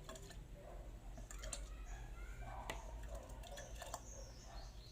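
Scattered light clicks and taps, a handful over a few seconds, as pounded ginger is put into a kettle.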